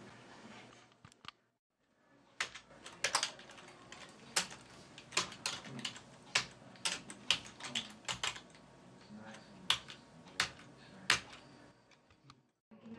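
Computer keyboard being typed on: a run of single sharp key clicks at an uneven pace, starting about two seconds in and stopping a couple of seconds before the end.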